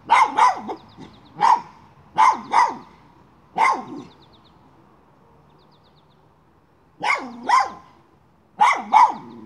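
Miniature schnauzer barking at a chipmunk it is hunting: about ten sharp barks, many in quick pairs, with a pause of about three seconds midway.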